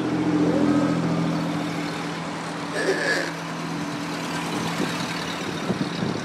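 Antique Ford cars driving past, their engines making a steady low hum that is loudest in the first second or so and then fades as they go by. A short, higher-pitched tone sounds about three seconds in.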